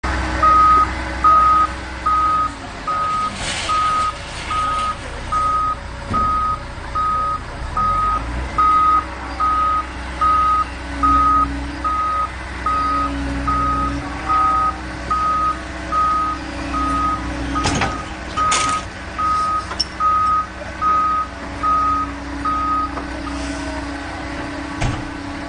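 Heavy vehicle's reversing alarm beeping steadily, a little faster than once a second, over the low running of its engine; the beeping stops near the end.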